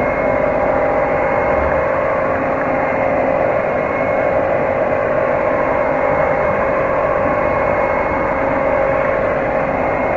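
Handheld electric mixer running steadily, beating an agar-based mixture in a metal pot. Its motor gives an even, constant-pitched hum.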